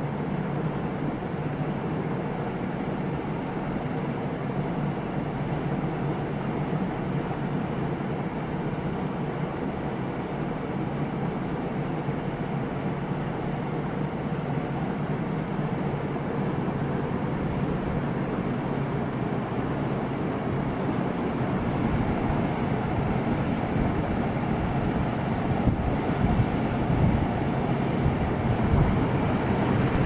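Many ceiling fans running at once: a steady whir of spinning blades and moving air. Toward the end it grows louder, with gusts of fan wind buffeting the microphone.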